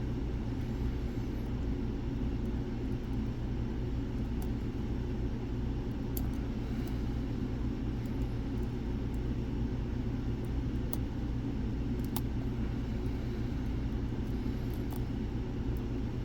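Steady low background rumble with a few faint, sharp clicks scattered through it: a pick working the pins inside a Mul-T-Lock-style clone cylinder, still searching for a stuck high-set pin.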